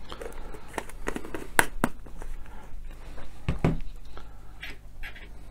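Lid being closed on a tub of Vallejo texture paste and the tub set down on a wooden desk: a run of sharp clicks and light knocks, with one heavier knock about three and a half seconds in, then brief scraping near the end.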